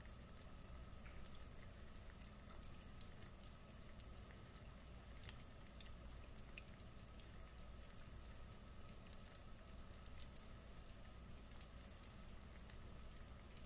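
Faint crackle of hot oil shallow-frying flour-coated round scad (galunggong), with small pops spitting at irregular intervals over a low steady hum.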